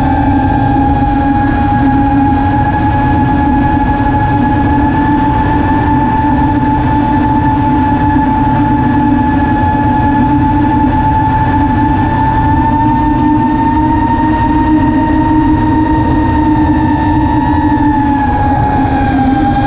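Four T-motor F40 III 2400kv brushless motors of a 5-inch FPV racing quad whining at a steady cruising throttle, with wind rush on the onboard camera's microphone. The pitch dips briefly near the end as the throttle eases, then climbs again.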